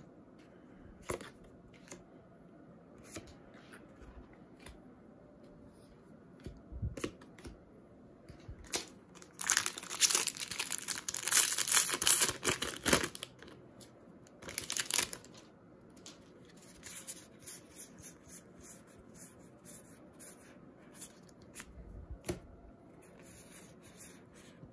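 Foil Magic: The Gathering booster pack wrapper being torn open and crinkled: a loud rustling stretch of about three seconds roughly ten seconds in, then a shorter crinkle. Light clicks of cards being handled come before and after.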